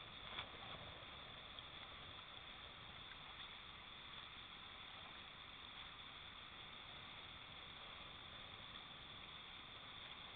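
Faint, steady rushing of a whitewater river rapid, with a few soft knocks just after the start.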